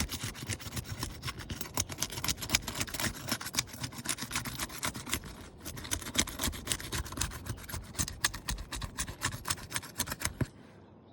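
Old, brittle asphalt shingle tabs being pried up and torn free from their adhesive sealant strips: a rapid rasping, crackling scrape that stops about ten seconds in. The tabs rip fibreglass matting and granules off the strip instead of separating cleanly, a sign of aged, poor-condition shingles.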